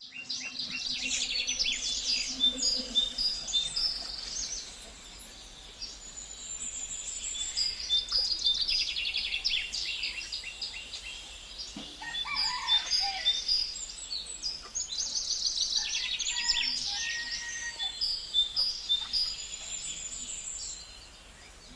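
Many birds chirping and chattering together in high, busy waves that swell and ease every few seconds, with a lower call about halfway through.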